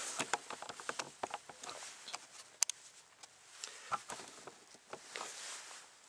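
Handling noise as the camera is picked up and moved: scattered light clicks and knocks with clothing rustling, and one sharper click about two and a half seconds in.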